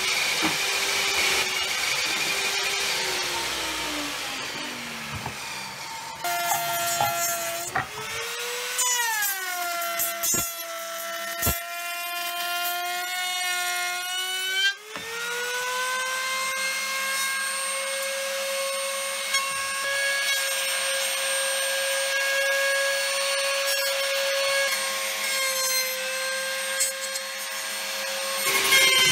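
Woodworking power tools working pine. A motor winds down over the first few seconds. Then a table-mounted router spins up with a rising whine about 8 seconds in, and again about 15 seconds in, each time settling into a steady high whine as it trims the pine pieces with a bearing-guided flush-trim bit.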